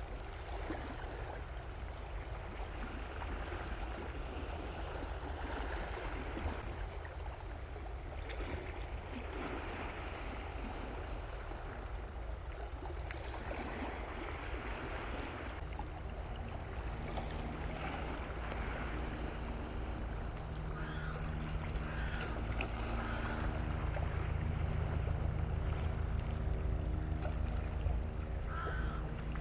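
Water moving and wind rumbling on the microphone. About halfway in, a steady boat motor hum joins in, and a few short calls come in the second half.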